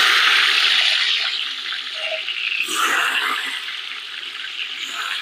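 Raisins tipped into hot oil in a large pot, sizzling hard at first and slowly easing, with a second surge of sizzling about three seconds in.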